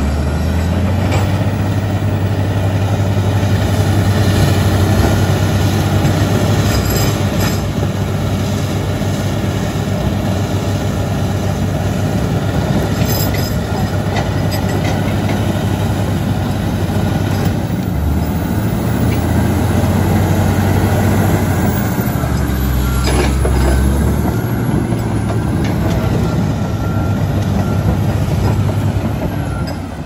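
Komatsu D85EX crawler dozer's diesel engine running loud and steady under load, with its steel tracks clattering and squeaking as it pushes soil and rock.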